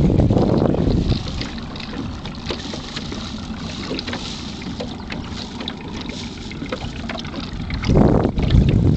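Wind buffeting the microphone out on the water, with two strong low gusts, one in the first second and one near the end, over a steady rushing background with small scattered ticks.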